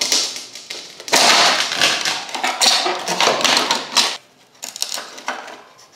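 Rapid crackling and clicking of plastic as a 1981 Camaro tail light lens is pried loose from its housing and old gasket, lasting about three seconds. A few lighter clicks and knocks follow as the parts are handled.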